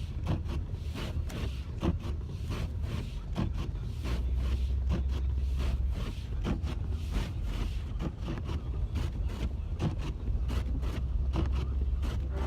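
Car driving on a snowy road, heard from inside the cabin: a steady low rumble with frequent short knocks and clicks.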